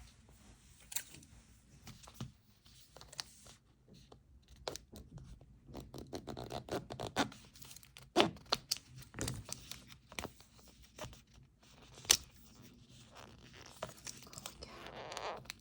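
Plastic toy packaging being handled and torn open by hand: irregular crinkling, scratching and tearing, with two sharper snaps about 8 and 12 seconds in.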